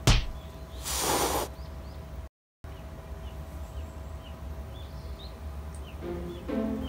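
An old ginger tabby tomcat gives one sharp hiss of a little under a second, about a second in: a warning threat at a kitten. Small birds chirp faintly throughout, a sharp knock comes right at the start, and music begins near the end.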